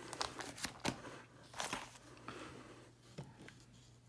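Plastic card-sleeve pages in a ring binder crinkling and rustling as they are handled and turned, with scattered light clicks and taps.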